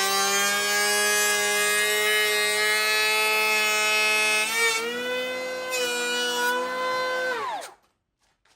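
DEWALT 20V MAX brushless cordless hand planer running with a loud, high whine while taking passes across the grain. The pitch shifts slightly about halfway through, then falls away and stops near the end as the trigger is released and the cutter head spins down.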